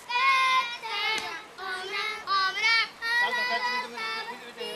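Children's high voices chanting and calling out cheers in a sing-song, several voices overlapping, as a youth baseball bench does during an at-bat.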